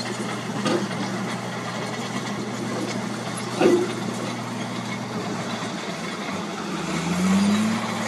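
Hyundai dump truck's diesel engine running steadily while soil and rock slide out of the raised tipper bed, with a thud a little under a second in and a louder one near four seconds. About seven seconds in, the engine speeds up, its pitch rising and the sound growing louder for about a second.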